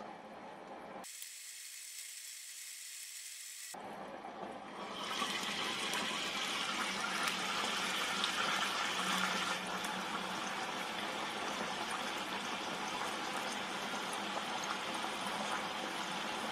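Chips bubbling and sizzling in hot oil in a mini electric deep fat fryer during their second, high-temperature fry. The sizzle is faint at first, grows much louder about five seconds in, and then holds steady.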